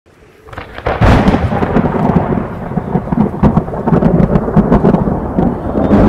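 Thunderstorm noise: a loud, low rolling rumble with crackles that swells up within the first second and keeps going.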